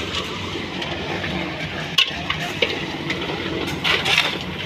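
Drum concrete mixer running, churning crushed stone and cement with a steady rattling hiss. Shovels scrape and clink in the gravel over it, most plainly near the end.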